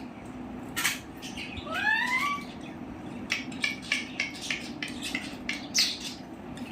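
Pet parakeet calling: a short harsh note about a second in, then a rising drawn-out call, followed by a run of short clicks and chirps.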